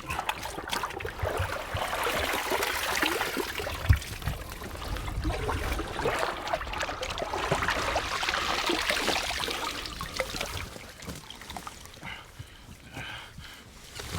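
Liquid trickling and sloshing, in uneven swells with small wet clicks, and a single thump about four seconds in.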